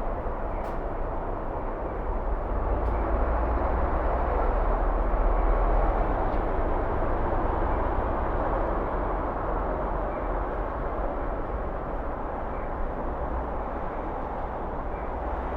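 Road traffic: a steady rumble of passing vehicles that swells about five seconds in and then eases off.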